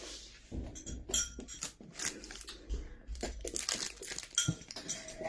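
A drinking glass clinking lightly again and again as it is handled and sipped from through a straw, with soft bumps and rustles.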